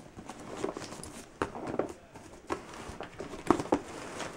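A capuchin monkey's hands scratching, tapping and pulling at a taped cardboard box: a string of irregular scrapes and taps.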